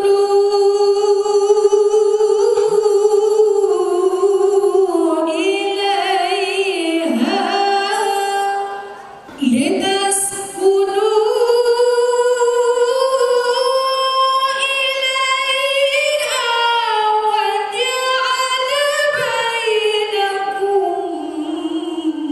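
A woman singing solo and unaccompanied, holding long notes that waver and turn in ornamented runs, with one short breath pause about nine seconds in.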